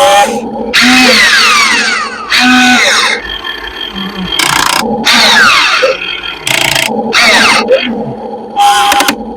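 RC model excavator's hydraulic pump and motors running in a series of short bursts, each with a pitch that falls away, over a steady hum.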